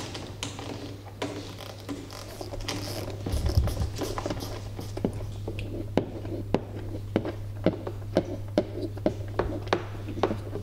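Light metallic clicks and taps of a 10 mm nut driver working the bolt on a golf cart's front roof strut, turning the original hardware out. The clicks come about two a second in the second half, over a steady low hum.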